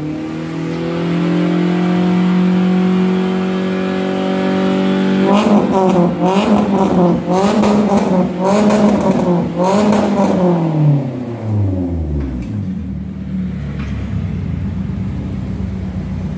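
Daihatsu Terios engine running through a newly fitted header and SVG resonator exhaust. It idles steadily, then is blipped about six times in quick succession, each rev rising and falling within about a second. It then drops back to a steady idle.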